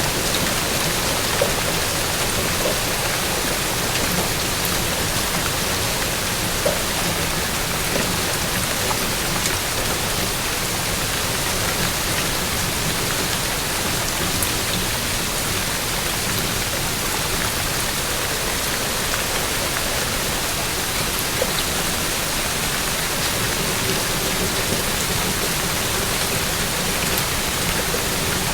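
Steady rain falling, an even hiss with scattered drop ticks, with a faint low hum in the background.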